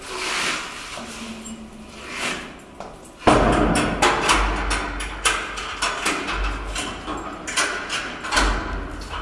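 Gorilla chewing raw cabbage leaves: a few softer crunches, then from about three seconds in a sudden, loud, dense run of crisp crunching and snapping.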